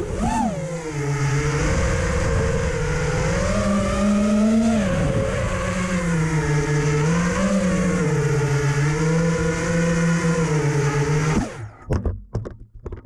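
FPV quadcopter's four Emax 2205 2300kv brushless motors and propellers whining, the pitch rising and falling with the throttle, heard from the onboard camera. Near the end the motors cut off suddenly, followed by a few scattered knocks.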